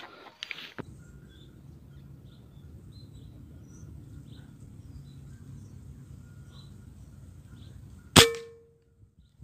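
Low rumble of wind and rifle handling while aiming. About eight seconds in, a single sharp air rifle shot with a brief metallic ring.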